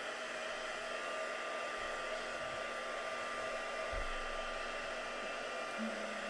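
Craft heat tool blowing hot air steadily with a constant motor whine, drying a freshly sprayed, still-wet distress oxide ink background.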